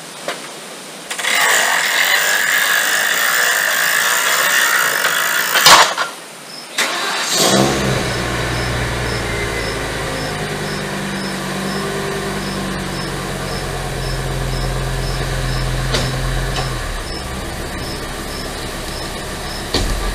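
A loud rushing noise for about four seconds ends in a sharp knock; then, about seven seconds in, the Class C motorhome's engine cranks, catches and idles, dropping to a lower idle a few seconds before the end.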